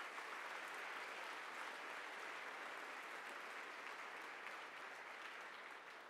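An audience applauding steadily, tapering off near the end.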